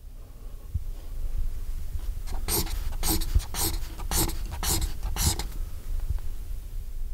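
Black felt-tip marker drawn across paper in quick strokes: six short strokes, about two a second, in the middle, over a low steady rumble.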